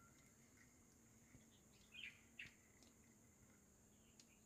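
Near silence: faint outdoor background with a steady high hiss and a few soft, short chirps about two seconds in.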